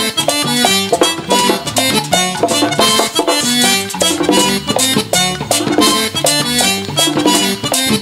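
Live merengue típico band playing an instrumental passage: button accordion carrying the melody over a fast tambora drum beat, the steady scrape of a güira and an electric bass line.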